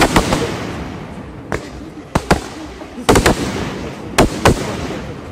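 Aerial firework shells bursting overhead: a series of sharp bangs, some landing in quick clusters, each trailing off into a fading rumble.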